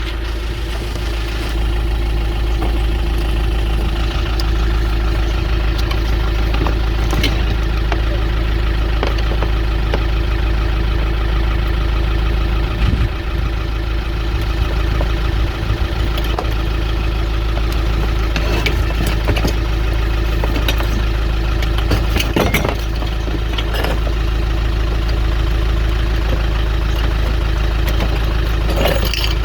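A vehicle engine idling steadily, its pitch holding level throughout, with a few light knocks and clicks over it.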